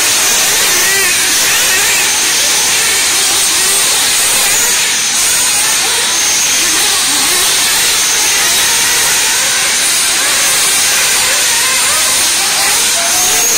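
Several 1/8-scale RC off-road buggies racing on a dirt track: a steady, loud hiss with a high whine from their motors and tyres.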